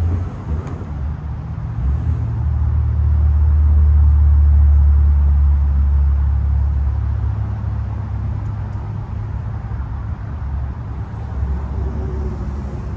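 Subaru Outback's 2.5-litre flat-four boxer engine pulling under load as the car climbs a dirt slope: a low, steady drone that swells to its loudest about four seconds in, then fades slowly as the car moves off.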